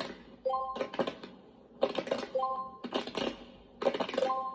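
Game beat track: a short three-note electronic chime about every two seconds, with quick runs of sharp claps and hits between the chimes.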